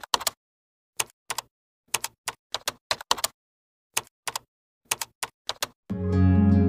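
A typing sound effect: about twenty sharp key clacks at an uneven pace, with dead silence between them. Gentle music with plucked strings comes in near the end.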